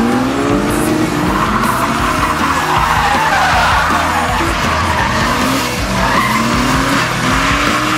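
Nissan 240sx's RB25DET turbocharged straight-six revving in a drift, its note climbing in pitch again and again, over continuous tyre squeal.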